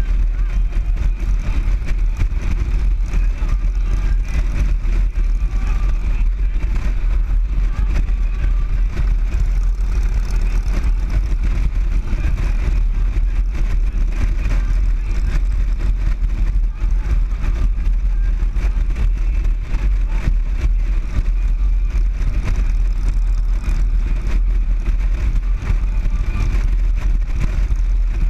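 Motorcycle cruising at steady road speed: a continuous low engine drone mixed with heavy wind rumble on the microphone, with no change in pace.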